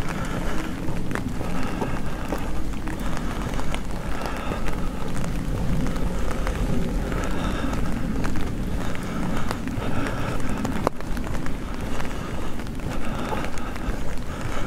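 Footsteps of a person walking outdoors, with a steady low rumble of wind or movement on the microphone and scattered sharp clicks.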